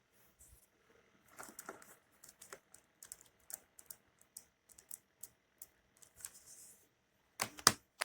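Typing on the small keys of a Fosmon mini Bluetooth keyboard: light, irregular key clicks. Two louder clicks come near the end.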